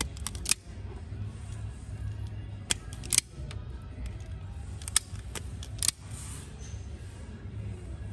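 Hand wire stripper clamping and releasing in a series of sharp clicks, about six in all, as it strips the insulation off a thin loom wire.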